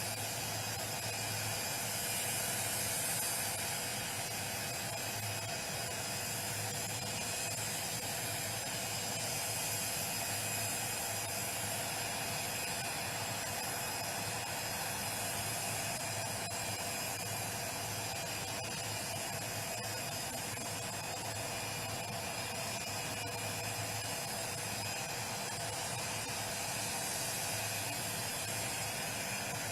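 Jet aircraft engines running steadily on the airfield: a constant hiss with several high, even whining tones that do not rise or fall.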